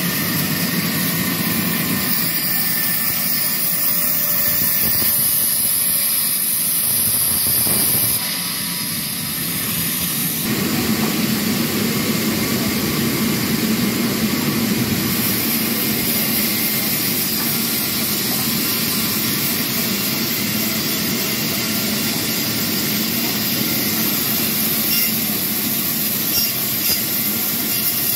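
Sawmill band saws running and cutting timber logs: a steady, loud machine noise with a strong high hiss, which changes character between about eight and ten seconds in.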